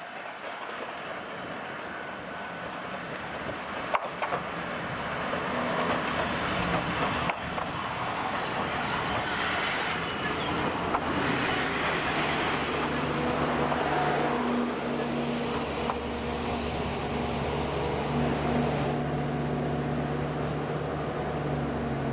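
Diesel railcar drawing closer with its engine running, the noise building over the first few seconds and then holding steady with a low engine drone.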